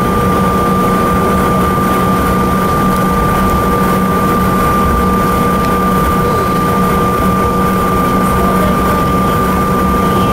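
Steady cabin noise of a CRJ-700 jet taxiing, its engines turning at low thrust: an even hum with a few steady tones running through it.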